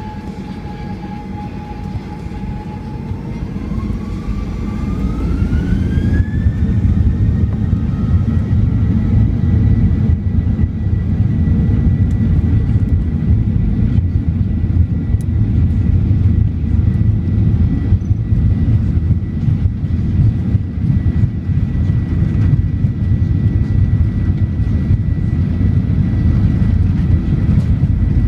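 Boeing 737-800's CFM56-7B turbofan engines spooling up to take-off thrust, heard inside the cabin over the wing: a fan whine climbs steeply in pitch a few seconds in as the roar grows louder, then both hold steady at full power.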